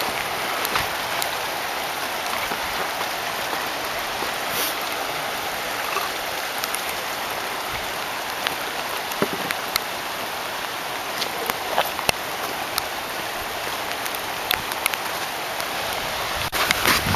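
Steady hiss of surf washing in over a rocky shore, with a few light ticks scattered through.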